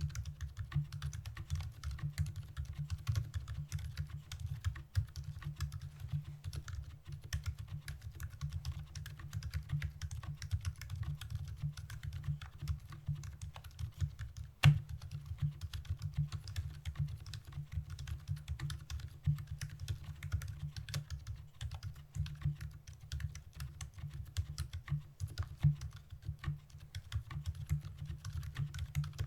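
Continuous typing on a Novelkeys NK65 mechanical keyboard with stock Gazzew Boba Pink silent linear switches, an aluminium plate and PBT keycaps: a dense run of low key strikes, with one sharper clack about halfway through.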